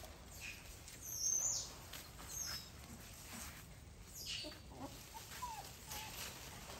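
Small birds chirping a few short times, the loudest about a second in, with a few lower, falling whistled notes later on and faint rustling.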